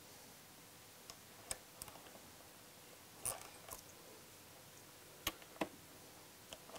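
Sparse light clicks from a hand tool and bolts as the number plate's mounting bolts are tightened into threaded inserts in the bracket. About eight short clicks, spread unevenly over several seconds.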